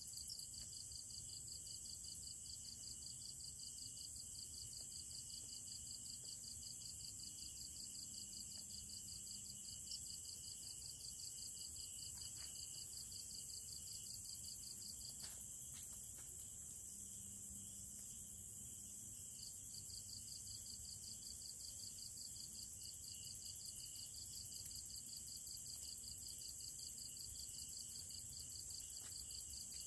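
Night insect chorus of crickets: steady high-pitched trilling in several layers, one a rapid pulsing trill that drops out for a few seconds about halfway through, with a few faint clicks.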